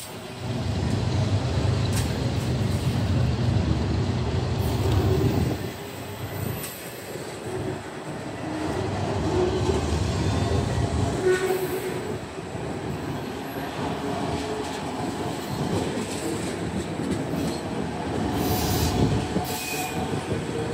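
CN freight train of autorack cars rolling steadily past, the wheels rumbling and clattering on the rails. Brief high wheel squeals come near the end.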